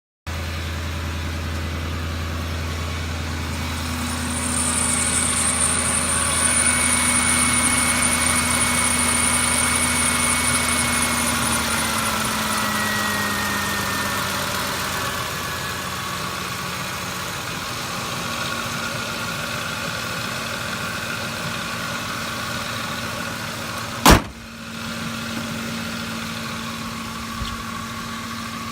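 Ford F-150 engine running with noise from its serpentine belt drive: a failing belt tensioner and worn pulleys. A high thin whine comes in about four seconds in and fades about halfway, and the running tones drop slightly in pitch. A single sharp click comes near the end.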